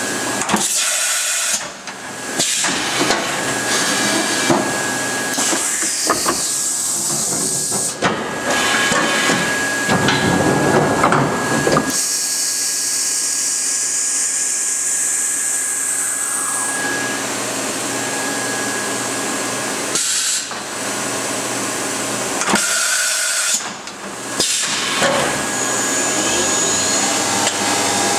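Matsuura RA-1 CNC vertical machining center running through its cycle: a steady machine hiss and whir, broken several times by sudden stops, starts and clunks. Around the middle a whine rises in pitch.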